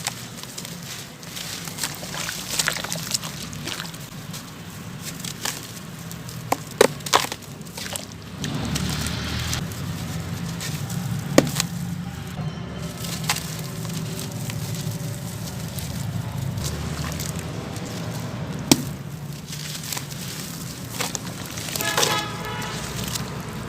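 Dry sand-cement chunks being crumbled and crushed, a continuous gritty crunching broken by sharp snaps as pieces break, several of them standing out loudly.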